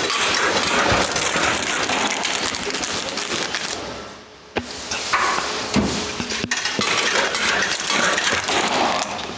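Clattering and crackling at a food vending machine's plastic pickup flap as a plastic-wrapped pastry is pulled out. The noise dips briefly about four seconds in, and two sharp clicks follow.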